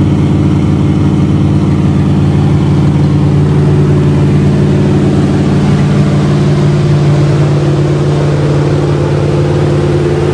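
1976 Chrysler New Yorker's 400 V8 running on a steady fast idle shortly after a cold start, the choke still on.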